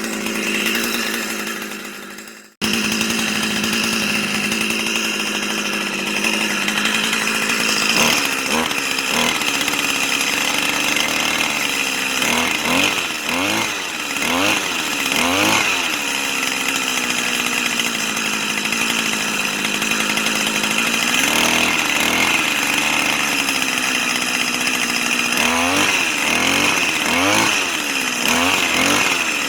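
Small two-stroke string trimmer (whipper snipper) engine running, blipped up and down again and again, with clusters of short revs in the middle and near the end. A brief break about two and a half seconds in.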